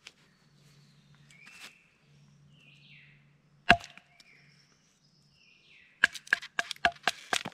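Soft bark being knocked and chopped off a cut log with a blade. There is one sharp strike about halfway through, then a quick run of about ten strikes near the end.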